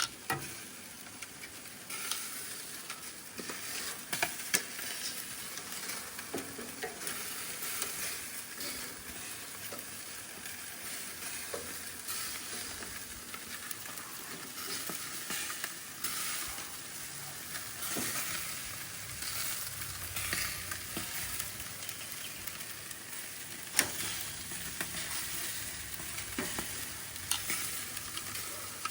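Meat sizzling over a charcoal grill: a steady hissing crackle of fat and juices hitting the heat, with a few sharp clicks and pops along the way.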